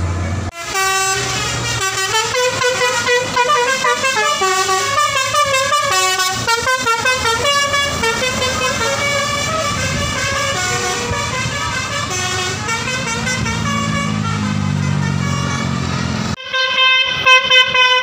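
Bus telolet horn of the basuri type playing a quick multi-note tune, the pitch stepping up and down note by note. Near the end it breaks off suddenly and another horn tune starts.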